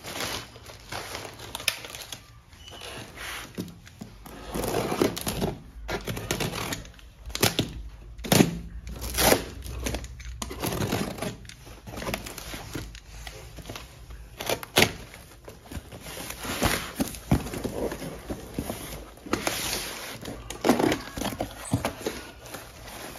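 Parcel being unpacked by hand: a plastic carrier bag crinkling, packing tape on a cardboard box being sliced with a box cutter and torn, and the cardboard flaps pulled open, with irregular rustles and sharp knocks throughout.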